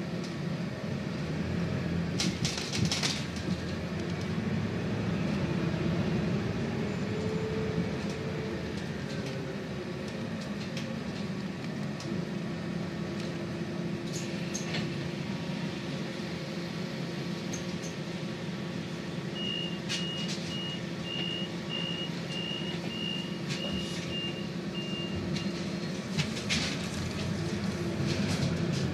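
Cabin noise of a Scania Citywide 12 LF CNG city bus on the move: a steady drone of the gas engine and road, with a whine that rises and falls about eight seconds in. Short rattles and knocks come now and then, and a run of evenly spaced high beeps lasts about six seconds past the middle.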